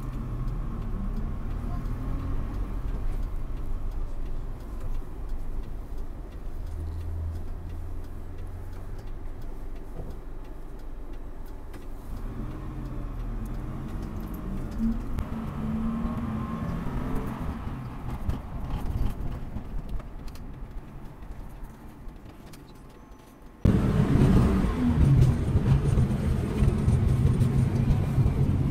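Motor vehicle running, heard from inside the cabin: a low engine and road rumble whose pitch rises and falls as it speeds up and slows in traffic. Near the end the sound cuts abruptly to louder, busier traffic noise.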